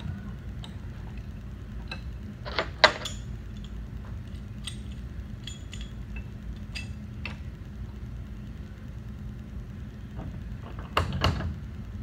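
Metal-on-metal clinks and knocks as a pipe wrench snugs a threaded core cap onto a pulling-tool core held in a bench vise. A sharp clank comes about three seconds in, then scattered light ticks, and two more clanks near the end, over a steady low hum.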